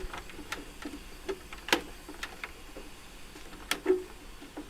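Irregular sharp clicks and clacks of loose wire and small parts stripped from an air conditioning unit being handled, with two louder clacks about two seconds apart.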